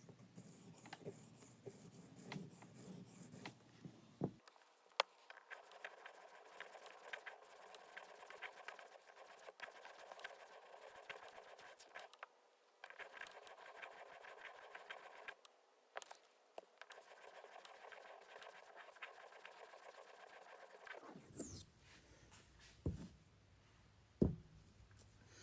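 A 440C steel knife blade being stroked across a wet 8000-grit whetstone: faint, repeated scraping with small ticks, and a few knocks near the end.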